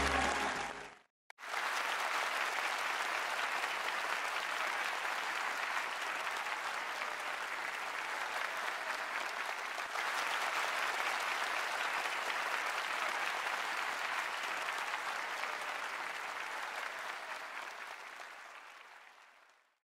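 Music with singing breaks off about a second in; then a theatre audience applauds steadily, the applause fading out near the end.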